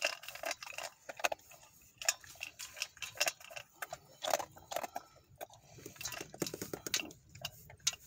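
Dog eating from a stainless steel bowl: irregular crunching and clicking against the metal, with a quicker run of ticks about six seconds in.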